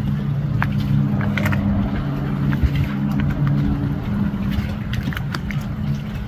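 Motorboat engines running steadily, a low hum with a slightly higher tone that drops out about four seconds in, and scattered light knocks on top.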